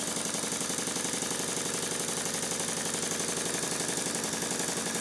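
Stuart triple expansion model steam engine running on compressed air: a rapid, even beat of exhaust puffs over a steady hiss of escaping air.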